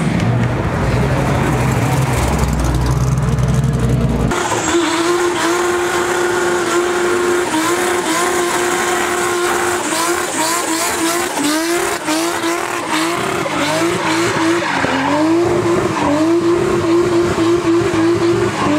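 For the first four seconds a Pontiac Trans Am's V8 rumbles as it pulls away. Then a BMW E36 does a burnout: its engine is held at high revs, the note dipping and rising several times, over the hiss and squeal of a spinning rear tyre.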